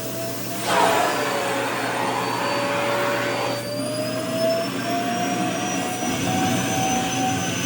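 Vacuum cleaner running with a steady motor whine as it sucks at a skirt's fabric. About a second in, a louder rush of air comes in for a few seconds and the whine dips slightly; afterwards the pitch rises a little and holds.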